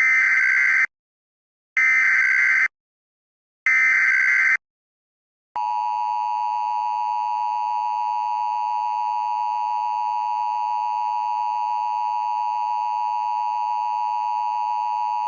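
Emergency Alert System alert tones: three short bursts of warbling SAME header data about two seconds apart, followed by the steady two-tone attention signal held for about ten seconds. Together they mark the start of a new emergency alert broadcast.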